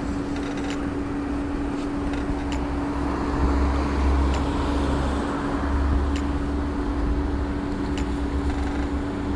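City street traffic under a steady low hum, with vehicles passing about four and six seconds in. Faint short ticks repeat about every two seconds.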